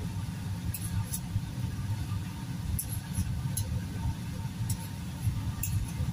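A papaya being peeled by hand with a blade: about six short, light scraping clicks of the blade on the fruit. Under them runs a steady low rumble.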